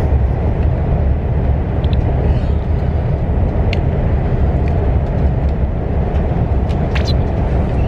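Steady low rumble of a KTX high-speed train running, heard inside the passenger cabin, with a few faint clicks.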